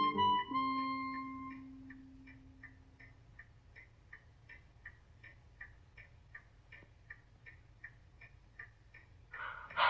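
The last held notes of a music cue fade out, leaving steady, even ticking at about three ticks a second, like a clock. Near the end a sudden louder noise cuts in.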